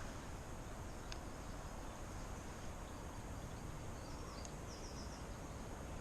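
Steady outdoor background noise with a low rumble and a thin, high, steady insect-like tone. There is a single faint click about a second in, and a few brief high bird chirps around four and a half seconds in.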